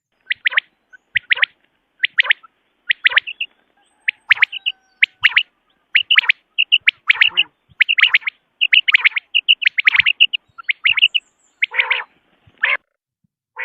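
Common quail calling: short, sharp chirping notes in quick groups of two or three, repeated over and over, with calls crowding and overlapping in the middle and a few lower, rougher calls near the end.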